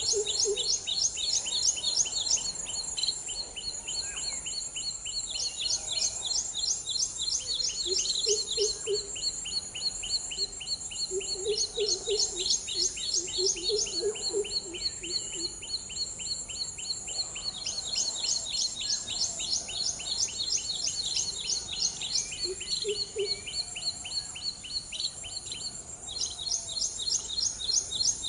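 Birds chirping: rapid runs of high, quick repeated chirps lasting a second or two each, over a steady high pulsing, with a few short lower calls now and then.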